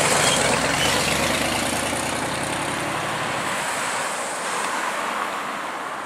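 A motor vehicle driving past close by, its engine and tyre noise fading steadily as it moves away.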